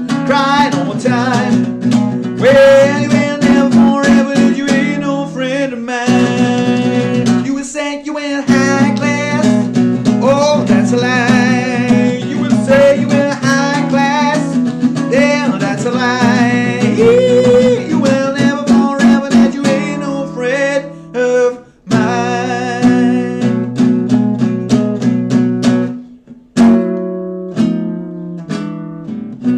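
Blues guitar instrumental: a lead line with bent notes over held low chords, stopping briefly a few times, then closing on a few notes left ringing to fade.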